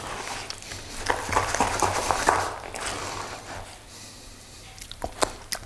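A small mixing utensil stirring and scraping thick tofu cream in a plastic bowl for the first few seconds, then a few light clicks near the end.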